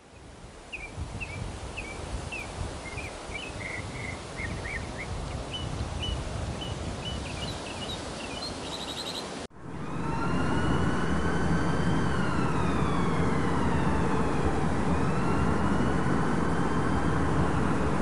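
Birds chirping in short calls over a steady background rush. About nine and a half seconds in, it cuts abruptly to louder city traffic noise with a siren slowly wailing up and down.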